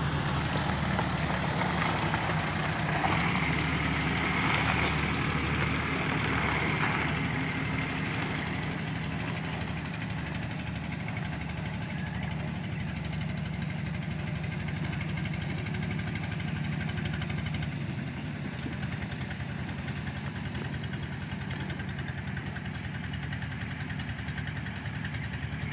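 A vehicle engine running steadily with a low, pulsing drone, a little louder over the first several seconds.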